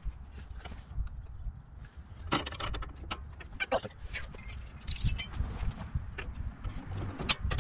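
Irregular sharp metal clinks and knocks of a wrench working the deck-levelling adjustment nut on a garden tractor's mower deck, thickest in the middle.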